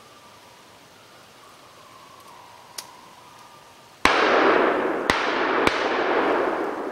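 Three gunshots close together: one about four seconds in, then two more within about a second and a half. Each is followed by a loud rolling echo that slowly dies away.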